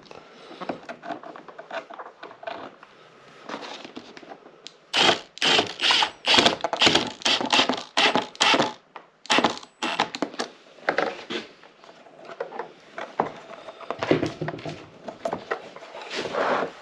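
Compact Milwaukee cordless driver run in short trigger bursts, driving fasteners into a plastic boat helm dash. The bursts come about two a second from about five seconds in, with more near the end, amid handling clicks and knocks.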